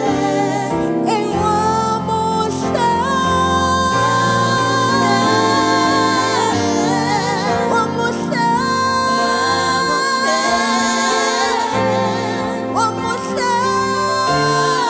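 Gospel praise music with a singing voice holding long, wavering notes over sustained chords.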